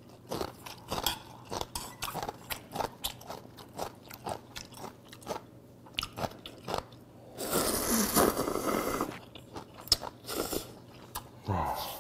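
Close-miked eating: chewing, with many small wet clicks and crunches. About seven and a half seconds in comes a loud slurp of ramen noodles that lasts nearly two seconds.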